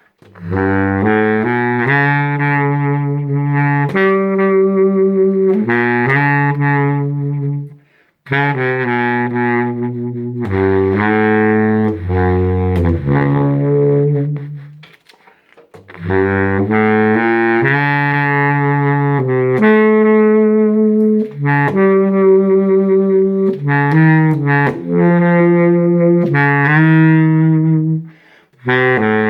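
Baritone saxophone played through a 3D-printed mouthpiece: a melody of held low notes in phrases, with three short pauses between them.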